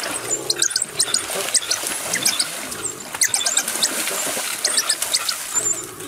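Many short, high-pitched squeaky chirps and squeals in quick runs, from a spotted hyena and African wild dog pack excited around prey in shallow water.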